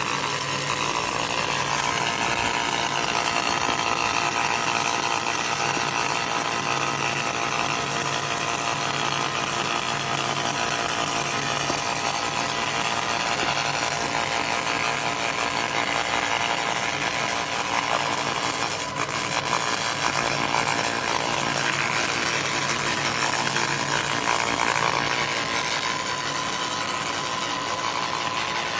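Laser cleaning machine working: a steady buzzing hiss with a few steady tones and a low hum under it, continuing without a break.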